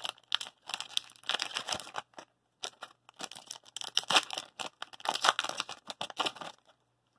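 A foil hockey card pack wrapper being torn open by hand, crinkling and tearing in a run of short bursts that stop shortly before the end.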